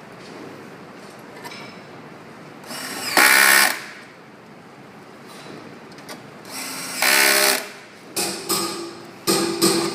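A small electric screwdriver whirs in two short bursts of about half a second each, a few seconds apart, as screws are driven. Near the end a quick run of sharp pulses begins.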